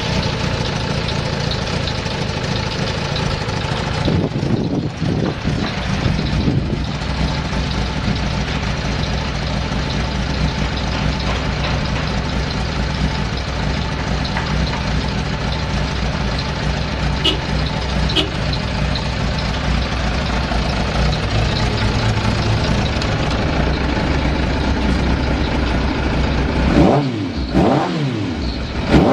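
Kawasaki ZZ-R1200 inline-four motorcycle engine idling steadily just after an electric start, with brief throttle blips about four to six seconds in and again near the end. It runs without abnormal noises, per the seller's check.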